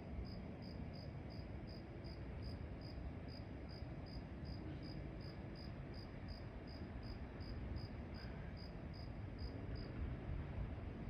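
Crickets chirping steadily, short high chirps about three a second, over a faint low rumble.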